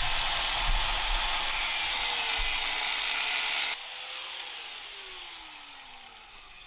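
Electric grinder cutting into rusted metal, a harsh hissing grind over the motor's whine. After about four seconds the cutting stops suddenly, and the motor whine falls steadily in pitch as the disc spins down.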